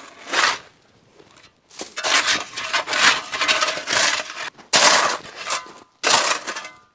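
A metal shovel scraping and chipping at ice on gravel, in a run of rough scrapes with short pauses between them.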